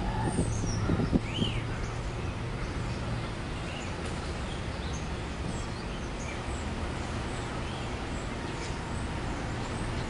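Steady low rumble of street traffic, with a few short knocks in the first second and a half and a few faint bird chirps.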